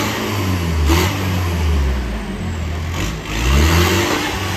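Modified off-road 4x4's engine revving hard in repeated swells, the pitch rising and falling several times as it climbs a boulder.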